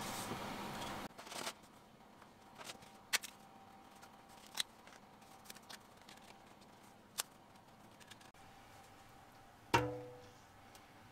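Background music that cuts off about a second in, then quiet kitchen handling: a few light clicks and, near the end, one loud ringing knock of kitchenware being set down or struck.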